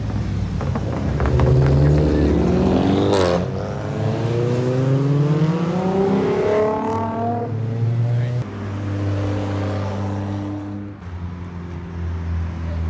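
Car engines accelerating on the street, each rising in pitch through a long pull, with one sharp crack about three seconds in; after that the engines settle into a steady drone.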